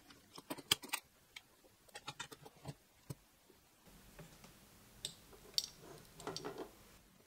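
Faint clicks and light taps of small metal hardware and printer parts being handled, in a few quick clusters: about half a second in, around two seconds in, and again between five and six and a half seconds in.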